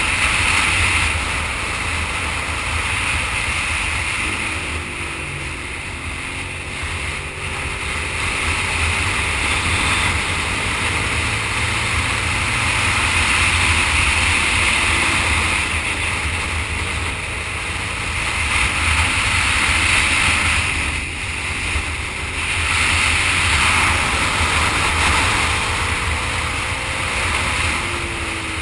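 Wind rushing over the microphone of a camera mounted on a sport motorcycle at speed. The engine is heard faintly underneath, its note rising and falling with the throttle, and the whole roar swells and eases every few seconds.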